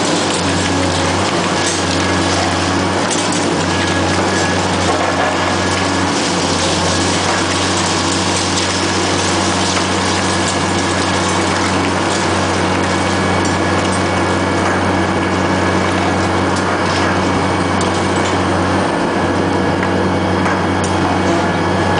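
Demolition excavator's diesel engine and hydraulics running steadily, a constant low drone that shifts slightly a few times, while its concrete crusher jaws work the building's edge, with a few sharp cracks.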